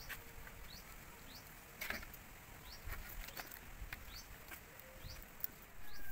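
Light crackling and rustling of fresh leaf strips as a taro-leaf bundle is tied, with a few sharper clicks just before two seconds in. Behind it, a small bird gives short rising chirps, one or two a second.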